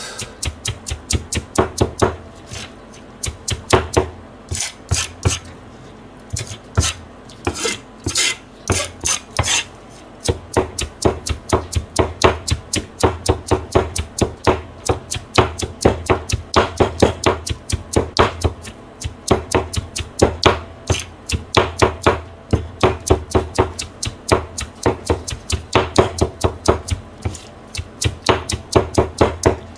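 Chinese cleaver rapidly mincing vegetables on a plastic cutting board: quick runs of sharp chopping strokes, several a second, with a brief pause about six seconds in.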